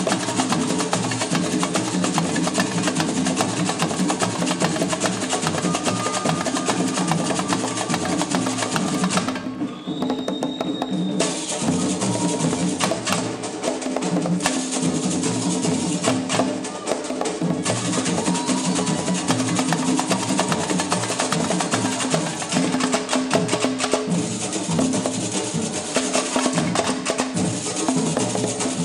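Live samba percussion: drums and a wood-block-like percussion instrument play a fast, steady rhythm. About ten seconds in, the drumming stops for roughly two seconds while a single high note is held, then the rhythm comes back in.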